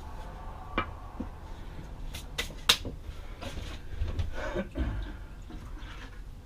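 A few sharp knocks and clicks as a plaster of Paris mold is set down on a wooden board, then water splashing in a bucket as hands reach into it.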